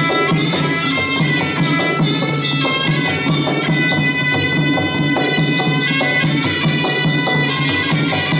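Traditional Khmer boxing fight music: a reed oboe's sustained melody over a steady beat of drums and small cymbals.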